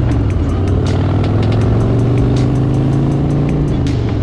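Motorcycle engine running steadily at road speed, its pitch drifting slightly, then easing off briefly near the end.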